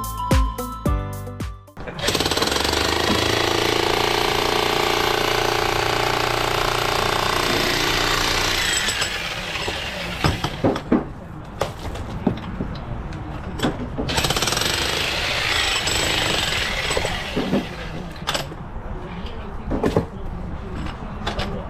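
Music ends about two seconds in. A jackhammer-type breaker then hammers hard for several seconds while a stone wall is broken up, stops, and hammers again. Between the two runs come sharp knocks and clatters of stone.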